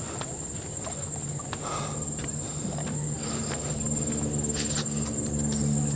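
Insects droning with a steady, high-pitched whine, with light footsteps on a paved path. A low steady hum sounds under it from about a second in.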